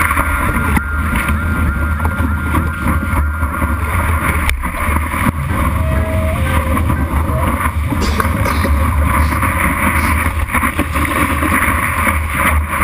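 Water rushing and splashing over a camera mounted on the nose of a surfboard while the board is paddled into and ridden along a breaking wave: a loud, steady rush with heavy wind-and-water buffeting in the low end.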